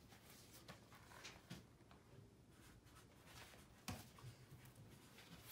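Faint paper rustling and soft taps as the pages of a hardcover picture book are turned by hand, with one sharper page flick about four seconds in.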